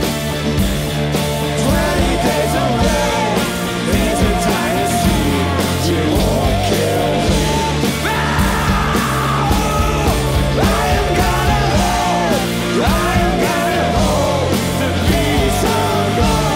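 Live pop-rock band playing a song with two women's voices singing over electric and acoustic guitars, keyboard and drums keeping a steady beat.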